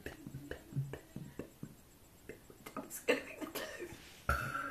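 A person's throat making small clicks and gulps while working up a burp, then one short, sudden burp near the end, which sounds like mostly air.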